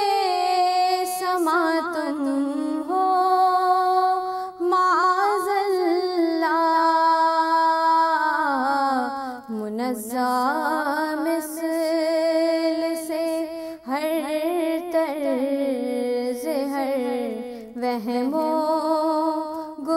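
A woman singing an Urdu naat solo, drawing the words out into long, wavering held notes in several phrases with brief breaths between them.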